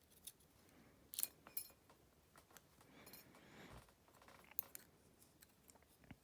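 Faint, scattered clicks and light metallic clinks of small padlock parts (shim, pins and springs) being handled on a work surface, with a couple of sharper clicks around a second in and again about four and a half seconds in.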